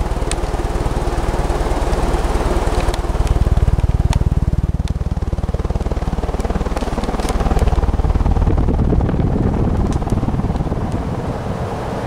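Evergo-built Montgomery Ward 48-inch cast aluminium spinner ceiling fan running on high speed. Its strong downdraft buffets the microphone into a loud, steady rumble that swells and eases, with a few light clicks.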